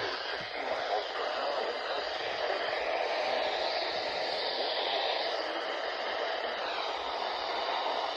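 Steady radio static hiss from a weakly received station, with faint traces of the broadcast under the noise.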